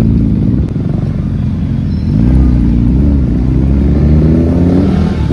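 Motorcycle engine under way, its pitch rising and falling with the throttle and climbing steadily for about two seconds in the middle, over a low rumble.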